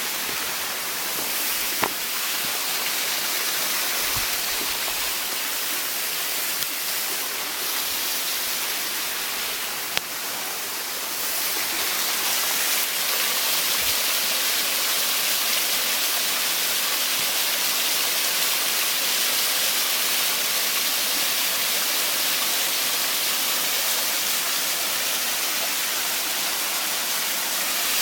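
Waterfall: a steady rush of falling water, with two small clicks, one about two seconds in and one about ten seconds in.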